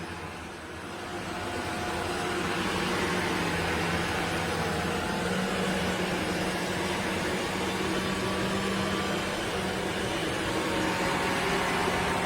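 Shark NZ801UKT upright vacuum cleaner running steadily: a whirring motor noise with a low hum. It builds up over the first couple of seconds and then holds level.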